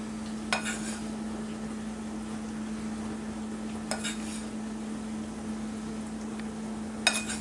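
A metal spoon clinking against a ceramic bowl three times, a few seconds apart, while icing glaze is scooped out, over a steady low hum.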